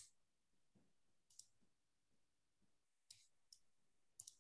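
Near silence broken by a handful of faint, sharp, scattered clicks of a computer mouse as a screen share and a PDF are opened.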